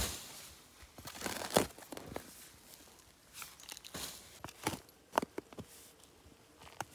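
Steel spade digging into forest soil: irregular scrapes and crunches as the blade cuts into earth and roots, with loose dirt and dry leaves falling, the loudest stroke about a second and a half in.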